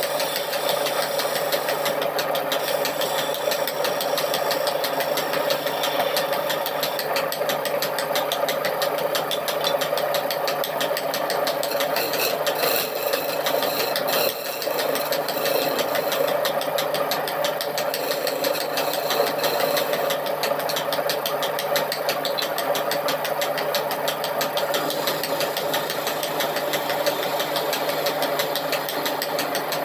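Electric power tool running steadily, with a strong steady hum and rapid fine vibration; it dips briefly about fourteen seconds in.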